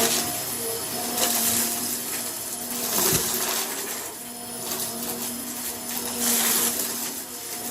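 Vacuum cleaner running with a steady motor whine, swelling and easing every second or two as it is pushed back and forth in fast strokes.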